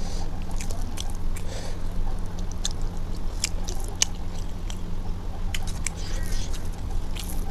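Chewing with wet, smacking mouth clicks, and fingers squishing rice and curry against a steel plate. A steady low hum runs underneath.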